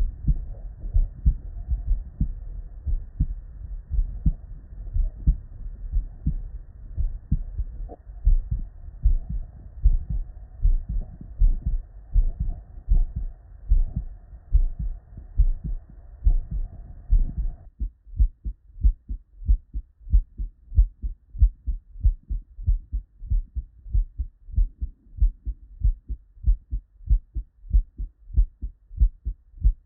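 Normal human heart sounds heard through a stethoscope: a steady lub-dub rhythm of the first and second heart sounds (S1 and S2). About 18 seconds in, a faint background hiss cuts off abruptly and the beats carry on cleaner and sharper.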